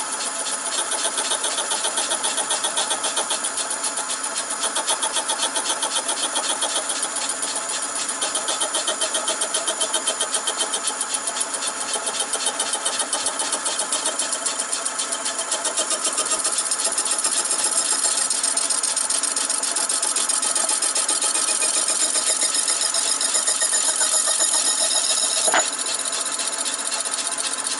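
Slitting saw on a metal lathe cutting through a soldered brass bearing bar: a steady, high-pitched whine with a fast, even buzz from the teeth. About 25 seconds in, a single sharp clink is heard as the saw breaks through and the cut-off block drops, and the saw then runs on slightly quieter.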